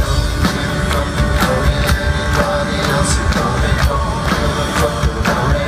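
Rock band playing live through a loud PA, with a steady beat of about two strokes a second, recorded from among the audience.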